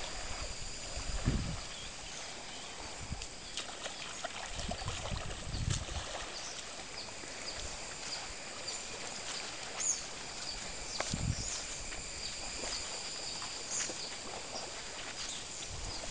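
Tropical beach ambience: a steady high-pitched insect buzz from the trees, with footsteps crunching in sand and a few brief low rumbles of wind on the microphone.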